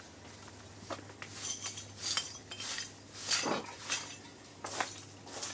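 Irregular clinks and light scrapes of small hard objects being handled, with a longer, fuller scrape about three and a half seconds in.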